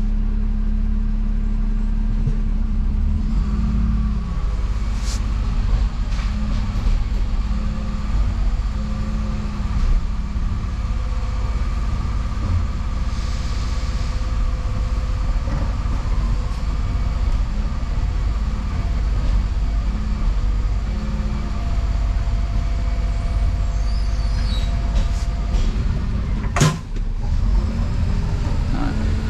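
Diesel engine of a Dennis Eagle Elite 6 refuse lorry running steadily, heard from inside the cab, with one sharp knock near the end.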